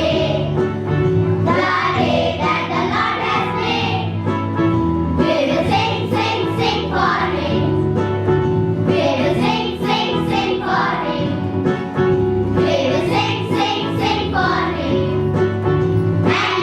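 A group of children singing a Christian song together in chorus, over a steady instrumental backing.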